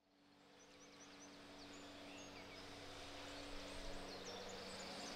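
Outdoor ambience fading in from silence: small birds chirping in quick short calls over a steady low hum and a faint even hiss.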